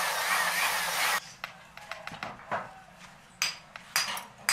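A loud rushing hiss that cuts off about a second in, then a few sharp metal knocks and clanks from a steel sand-casting flask as the top half of the mold is lifted and handled.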